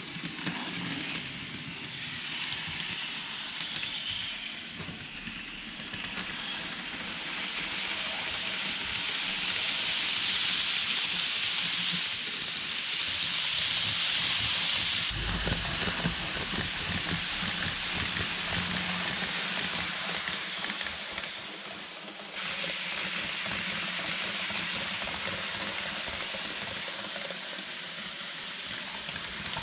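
KATO N-gauge E257 series 2000 model train running on layout track: a steady hissing rattle of small wheels on rail with motor whir, growing louder toward the middle as the train passes close by, and changing abruptly about two-thirds in.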